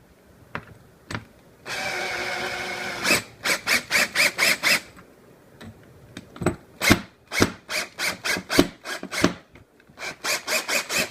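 A power drill whines for about a second and a half, then sharp mechanical clicks come evenly at about four a second in three spells.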